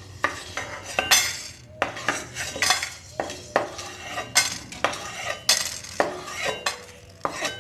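Wooden spatula scraping and knocking around a dry metal kadai, with small whole spices rattling, as freshly dry-roasted garam masala is scooped out of the empty pan. Repeated short scrapes, about one or two a second.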